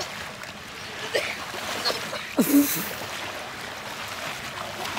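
Water splashing and sloshing around swimmers, with one louder, short splash about halfway through.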